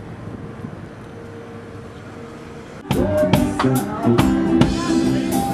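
Music with drums and guitar drops out to a quieter hiss with a faint steady hum, then starts again suddenly about three seconds in.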